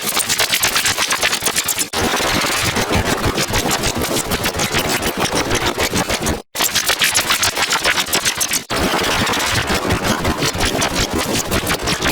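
Loud, digitally processed audio chopped into a rapid stutter of pulses, several a second, that sounds mechanical and buzzing. It breaks off briefly about two seconds in, cuts out completely for a moment about six and a half seconds in, and dips again near nine seconds.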